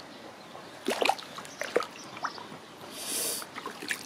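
Shallow water splashing and sloshing around a foot in a flip-flop stepping on submerged stone steps. A few short splashes come from about a second in, with a brief hissing splash near the end.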